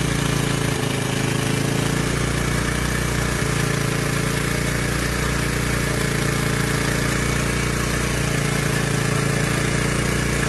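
An engine idling steadily, an even hum that holds its pitch.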